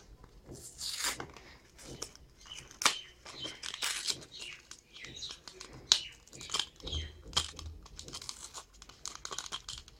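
Plastic packaging crinkling and tearing as a combination padlock is unpacked, in irregular rustles with scattered sharp clicks.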